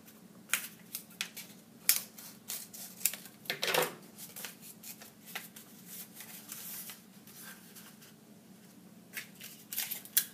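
Irregular clicks and rattles from handling at a drawing desk while paper rolls are taped down, with one longer rasp a little under four seconds in. The rattle is an iPad knocking against the drawing desk's metal frame as the desk moves.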